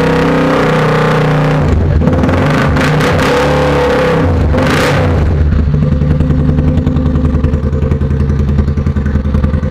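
Motorcycle engine running through a Roncar Boca 8 aluminium racing exhaust. It holds raised revs at first, drops about two seconds in, rises again briefly near five seconds, then settles into an idle with an evenly pulsing exhaust note.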